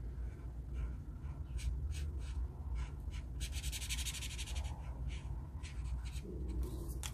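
Felt-tip marker scratching back and forth on paper, colouring in a printed square in short strokes, with a quick dense run of strokes about three and a half seconds in.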